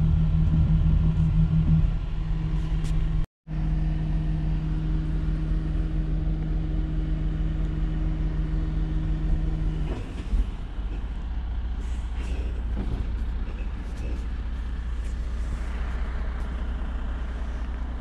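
A vehicle engine running steadily with an even hum, broken by a moment of silence about three seconds in. About ten seconds in the hum gives way to a lower, steady rumble.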